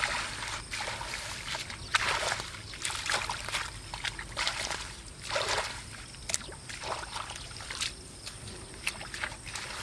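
Hands groping through shallow muddy water and mud, making irregular sloshes, splashes and wet squelches, with a sharper splash about two seconds in.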